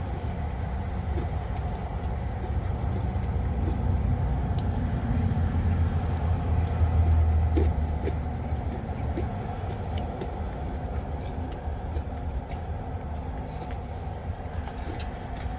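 Steady rumble of highway traffic, swelling to its loudest about halfway through as vehicles go by, then easing off.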